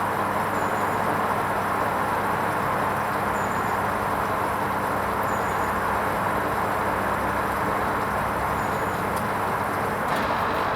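Hoover Vision HVP16 washing machine running through a wool rinse: a steady rushing noise with a low hum underneath.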